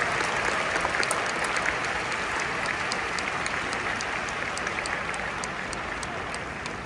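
Large audience applauding, the clapping slowly dying down toward the end.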